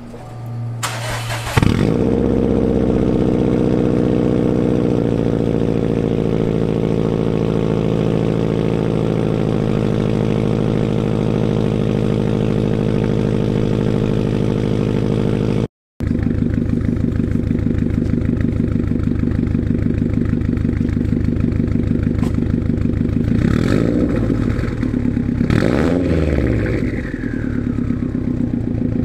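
Subaru STI's turbocharged 2.5-litre flat-four through a Tomei Expreme Ti titanium cat-back exhaust: the starter cranks and the engine catches about a second and a half in, then idles fast and steps down twice in pitch. After a short break it idles again and is revved three times near the end, each rev rising and falling back.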